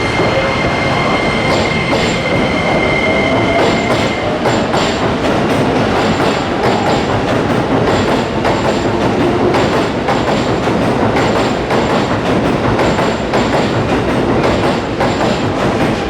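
Electric commuter train moving along the platform: wheels clacking over rail joints and points in a steady run of clicks. A thin high wheel squeal is heard over the first few seconds, and a motor whine rises slightly in pitch early on.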